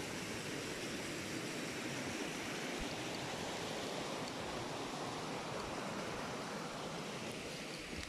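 Shallow brook running, a steady rush of water.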